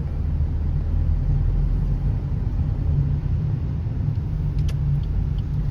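Steady low rumble and hum of a vehicle, with a few faint clicks in the second half.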